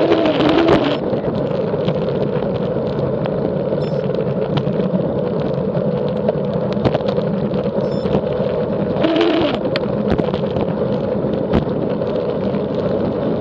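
Bicycle descending at speed: steady wind and tyre rush with a constant hum and scattered rattling clicks, the strange noise and vibration that comes on while descending. A brief louder rush with a pitch that swings up and down comes about nine seconds in.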